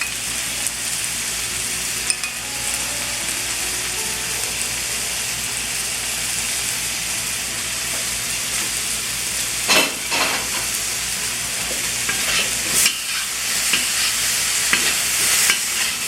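Chicken and vegetable stir-fry sizzling in a hot pan with cornstarch-thickened sauce, stirred and tossed with a utensil; a few sharp knocks of the utensil against the pan, the loudest about ten and thirteen seconds in.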